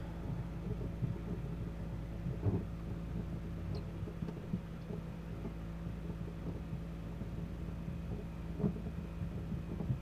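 Steady low hum, with a few faint knocks and clicks as a threaded water-line connection at the back of an RV outside faucet is worked loose by hand.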